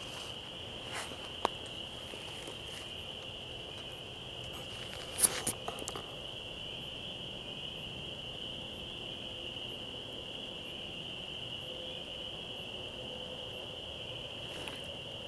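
Steady high-pitched chorus of distant calling animals, one unbroken drone at a single pitch. A sharp click about five seconds in is followed by two smaller ones.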